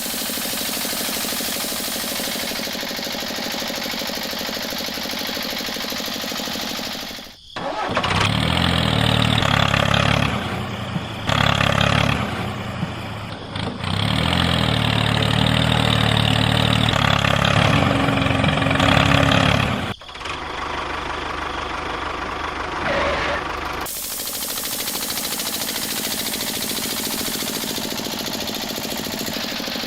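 Small motor-driven machine running, in several abrupt cut segments; it is louder and deeper from about eight seconds in until about twenty seconds in.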